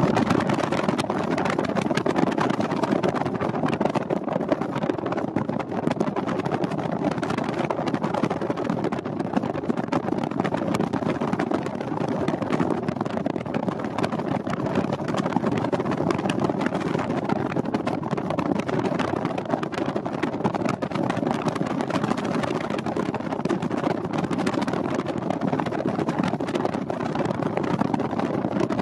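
Freight train of empty intermodal well cars rolling past: a steady rumble of steel wheels on rails with fine clicking and rattling.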